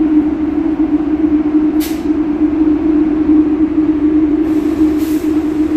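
MBTA Red Line subway train pulling out of a station, with a strong steady low hum over running noise. Two short hisses come about two seconds in and near the end.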